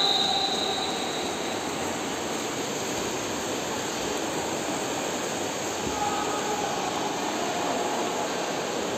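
Steady hiss of splashing water from a pack of swimmers sprinting freestyle down a pool.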